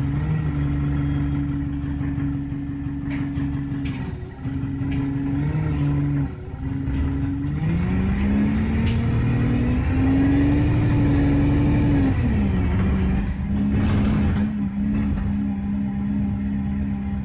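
Alexander Dennis Enviro200 bus engine running steadily, then accelerating about halfway through with its pitch rising, and dropping a few seconds later at a gear change.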